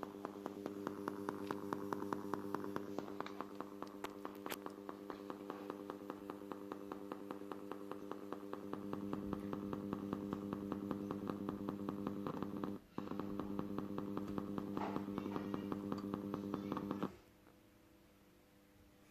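Subwoofer amplifier driving its speaker with a steady hum and rapid, regular popping several times a second, a sign of a fault in the amplifier. The sound drops out briefly about 13 s in and stops about 17 s in.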